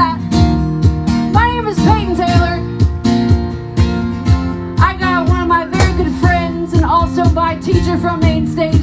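Live band music with guitar over a steady beat, a voice carrying over the playing.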